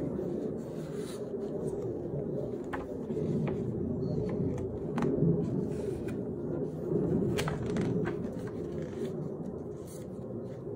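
Pages of a hardcover picture book being handled and turned by hand, with paper rustles and a few sharp clicks, over a steady low hum.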